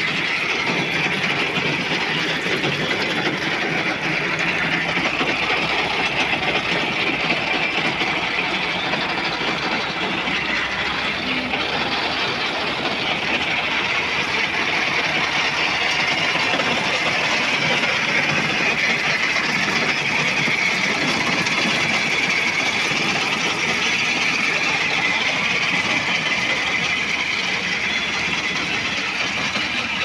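Tractor engine running steadily under load, together with the working noise of a tractor-mounted corn harvester whose gathering chains pull in and process dry corn stalks.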